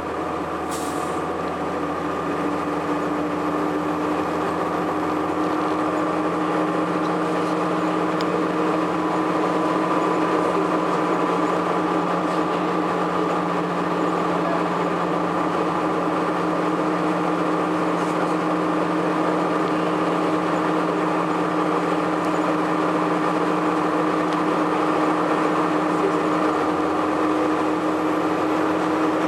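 A 2002 Blue Bird CS transit bus running between stops, heard inside: its Cummins ISC diesel engine and Allison B400R automatic transmission making a continuous drone with steady humming tones, growing a little louder over the first several seconds and then holding steady. A brief click sounds about a second in.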